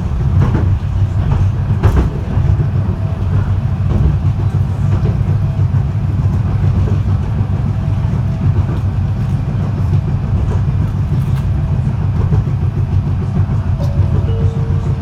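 Fukui Railway F1000 low-floor tram running, heard from inside the car: a steady low rumble of wheels and motors, with occasional sharp clicks of the wheels over the track.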